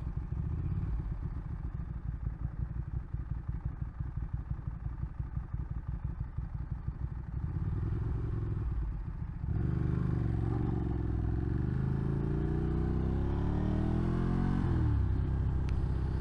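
Ducati twin-cylinder motorcycle engine idling with an uneven, pulsing beat while the bike stands at a junction. About nine and a half seconds in it pulls away, the revs rising steadily, then dropping sharply at an upshift near the end before it settles into a steady run.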